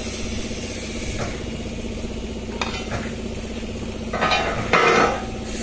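MIG welding torch arc striking on a steel beam: a burst of crackling sizzle lasting about a second, starting about four seconds in, over a steady machine hum.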